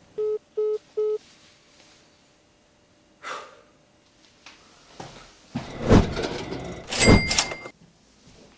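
Three short, evenly spaced beeps of a mobile phone call being ended. Later come two loud bursts of thumps and knocking, the louder sounds here, the second with a brief metallic ring.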